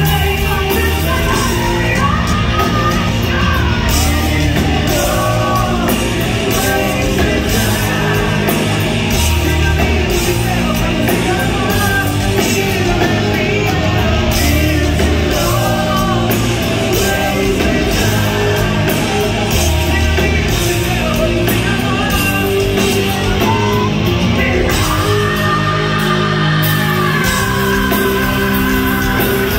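Live hard rock band playing loud in a large hall: electric guitar, drums and a male lead singer belting and yelling. Near the end a single note is held for several seconds.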